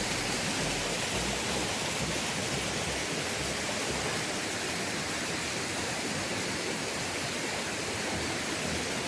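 Steady rush of water flowing over rocks at a small waterfall or cascade.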